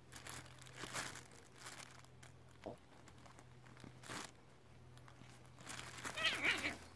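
Kittens scrabbling in a nylon pop-up cat tunnel and on a loose cloth, the fabric rustling and crinkling in irregular bursts, loudest near the end.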